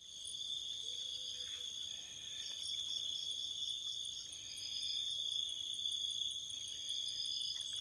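Chorus of night insects: a steady high-pitched trill that never breaks, with quicker pulsed chirping and a faint regular ticking layered over it.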